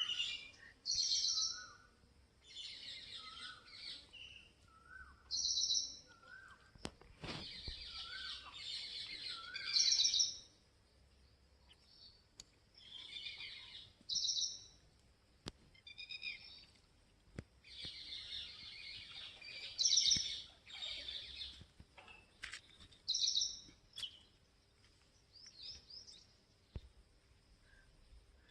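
Birds chirping and singing: short, high chirping phrases and lower whistled notes repeating every second or two, with a single sharp click about seven seconds in.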